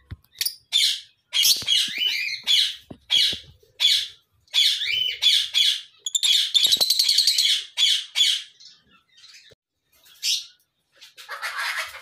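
Fischer's lovebirds squawking: a loud run of shrill, harsh calls one after another, with a fast rattling stretch in the middle, then two shorter calls near the end.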